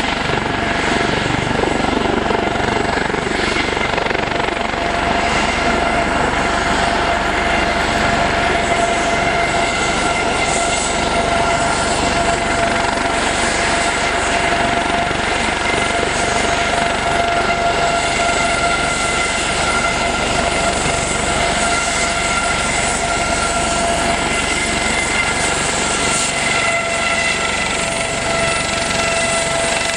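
Aérospatiale SA365N1 Dauphin helicopter running on the ground with its main rotor turning: a loud, steady turbine whine made of several held tones over the continuous noise of the rotor.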